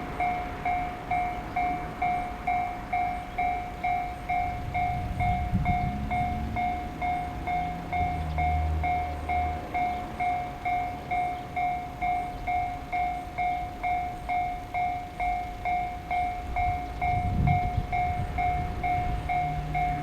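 Japanese railway level-crossing warning bell ringing its steady "kan-kan" at about two strokes a second, with the low rumble of a train passing underneath.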